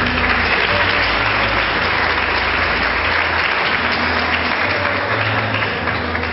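Audience applauding: a dense, steady clapping from many hands that thins near the end.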